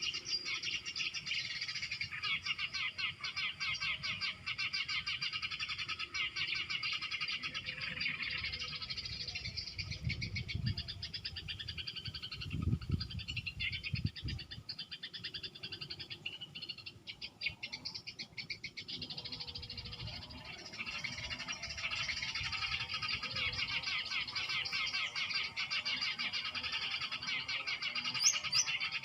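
Continuous rapid chattering and trilling of small birds, a bird-lure call meant to draw small birds to lime sticks. It thins out briefly a little past the middle, and a few low rumbles come just before that.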